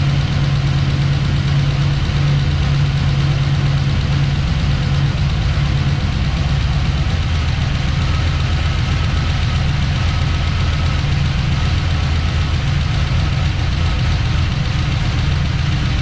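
Freshly rebuilt Cadillac CTS-V LS-family small-block V8 running at a steady idle, with an even, unbroken low engine note.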